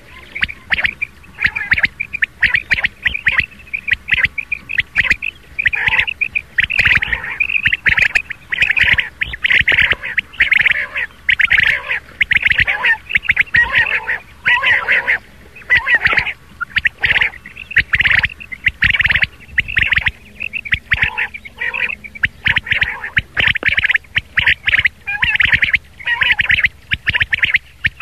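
Rain quail (batair) calls recorded for use as a hunting lure: sharp, high notes in short, loud runs, one after another with brief gaps.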